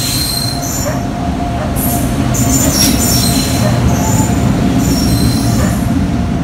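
Indian Railways WAP-7 electric locomotive and its blue passenger coaches running past along the platform: a loud rolling rumble under a steady hum, with high-pitched wheel squeal coming and going in repeated bursts.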